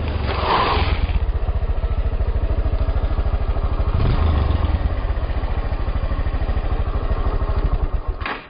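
Motorcycle engine idling with a steady, rapid exhaust beat, with a brief hiss about half a second in. Near the end there is a click and the engine cuts off.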